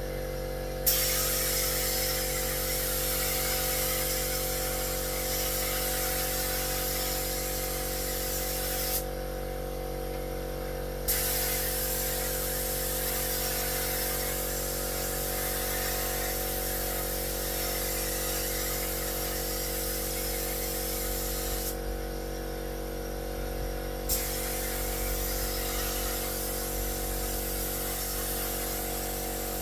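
Air spray gun hissing as it sprays paint in three long passes, each starting with a sharp burst as the trigger is pulled and with two short pauses between them, over the steady hum of a small home air compressor running.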